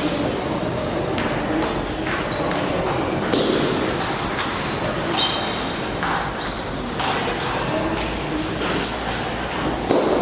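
Table tennis rallies: the celluloid ball clicking sharply off bats and table again and again, with short high squeaks and a steady background hubbub in a large hall.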